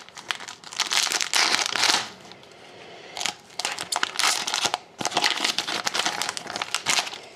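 Foil trading-card pack wrapper being torn open and crinkled, in three spells of crackling.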